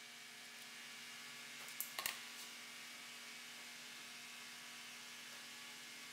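Faint steady electrical hum, with two brief clicks about two seconds in.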